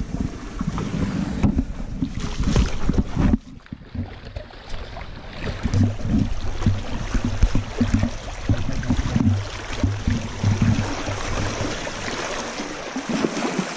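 Wading through shallow river water in waders: irregular sloshing and splashing steps, with rumbling wind and handling noise on the microphone. The sound drops abruptly about three and a half seconds in, then the sloshing resumes.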